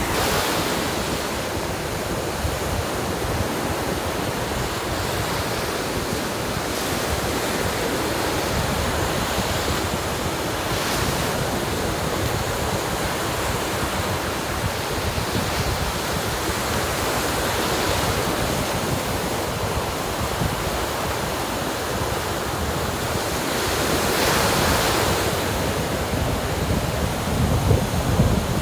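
Surf washing onto a sandy beach, with wind rushing over the microphone. The wash swells several times, most strongly near the end.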